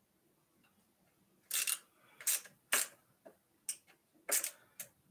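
A run of sharp, irregular clicks and clacks, about seven in a few seconds, from hands working on an e-bike's handlebars and the parts mounted on them.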